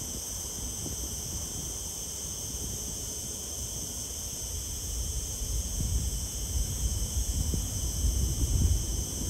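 Distant low rumble of an Airbus A320's jet engines at takeoff thrust, growing louder over the second half, over a steady high chirring of crickets.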